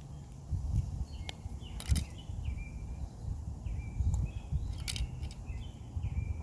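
A bird calling over and over in short, clipped notes that drop slightly in pitch, about two a second, with a few sharp clicks and a low uneven rumble of wind on the microphone.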